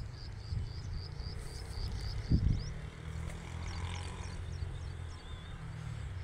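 Wind rumbling on the microphone while a bird calls in a rapid run of high chirps, about four a second, that stops about two and a half seconds in. There is a single thump at about the same point, then a few scattered high notes and a short warble.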